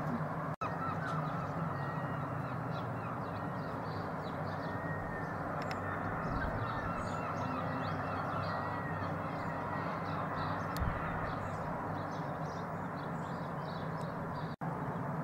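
Steady low outdoor background hum with faint bird calls scattered through it, crows cawing among them.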